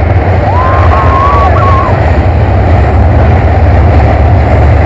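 Moncayo steel roller coaster train running along its track: a loud, steady rumble of the wheels on the rails with wind rushing over the microphone. A short high-pitched squeal rises and falls in the first two seconds.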